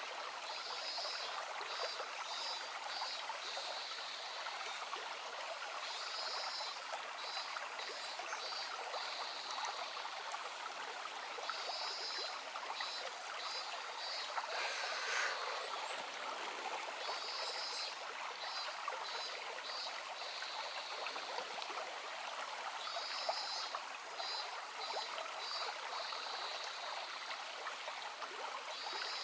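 Shallow stream murmuring and trickling steadily over stones. Over it, a high pulsing call comes in short runs every few seconds.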